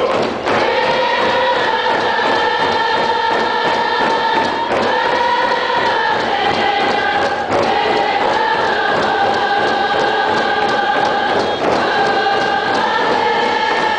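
A group of voices singing a Coast Salish song in unison, holding long notes that shift pitch every few seconds, over a steady beat on hide hand drums.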